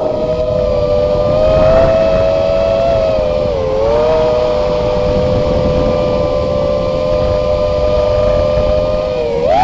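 Brushless motors of an FPV quadcopter whining at a steady pitch over a low rush of air, heard from the camera mounted on the quad. The pitch dips briefly about three and a half seconds in and climbs sharply at the very end as the throttle goes up.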